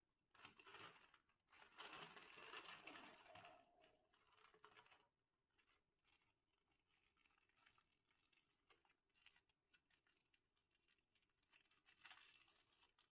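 Faint crinkling and tearing of a plastic snack packet being handled and opened, heaviest in the first few seconds, then lighter crackles with another flurry near the end.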